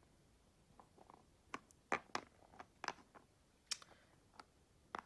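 Game pieces on a board-game map clicking and knocking as they are picked up and set down: about a dozen light, irregular taps.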